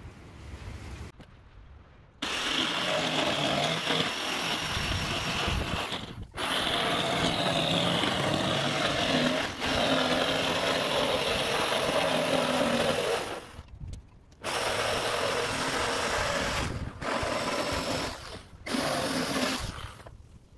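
Electric jigsaw cutting through an OSB subfloor panel, starting about two seconds in. The saw runs steadily, stops briefly about two-thirds of the way through, runs again, and ends in a few short bursts.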